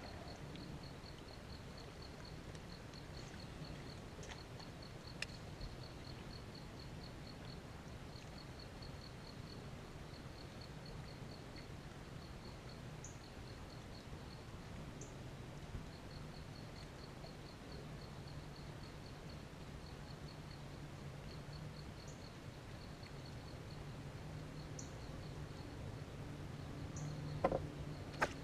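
Faint outdoor ambience: an insect chirping in a fast, even pulse at one high pitch, about five pulses a second, with a few short bird chirps and a low steady hum underneath. There is a single click near the end.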